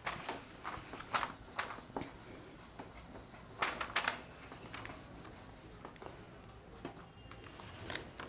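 Felt whiteboard eraser rubbing across the board, then a marker writing on the whiteboard in short, scattered strokes.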